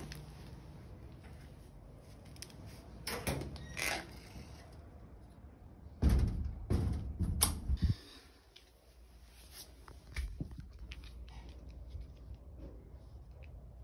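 A few knocks and thuds in a small room, the loudest cluster of thumps about six to eight seconds in, with fainter clicks after.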